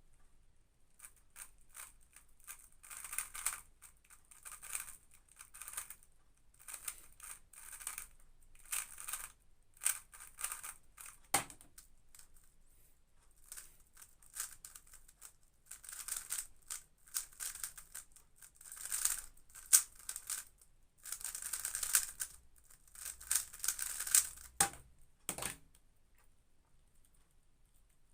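Magnetic 3x3 speedcubes being turned fast by hand: rapid runs of plastic clicking in bursts, with short pauses between sequences. A few sharper knocks stand out, twice, like a cube being put down.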